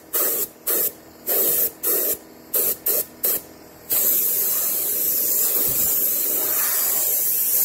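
Compressed-air paint spray gun hissing as paint is sprayed. It comes in a series of short bursts as the trigger is pulled and released, then about four seconds in it is held on for one long steady spray.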